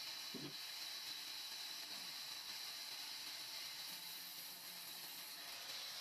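Band saw running without cutting, a steady high-pitched hiss. A brief low thud comes about half a second in.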